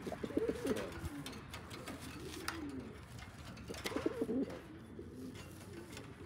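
Donek pigeons cooing in courtship as a pair forms: a bout of rapid, pulsing coos at the start and another about four seconds in, with softer drawn-out coos between.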